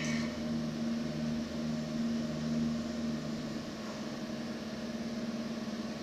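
Steady mechanical hum of a Redbird FMX full-motion flight simulator, with a low tone under it pulsing on and off; about four seconds in the lower tone fades and the hum takes on a fast flutter.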